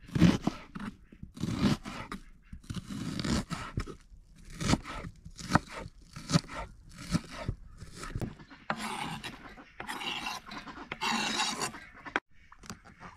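Kitchen knife chopping onion on a thick wooden chopping block: irregular crisp cuts and knocks of the blade on the wood. Later the knife scrapes the chopped onion across the board.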